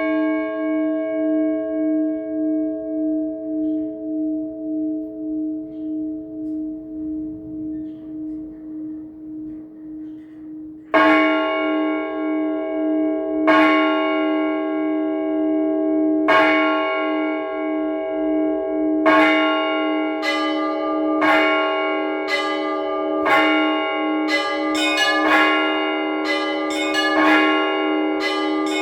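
Orthodox church bells: a large bell's stroke hums and slowly fades with a pulsing beat, then about eleven seconds in the large bell strikes again every two to three seconds. From about nineteen seconds in, smaller bells join with quicker strokes, building into a full trezvon peal.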